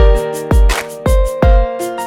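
Background music: sustained pitched chords over a beat of heavy low drum thumps.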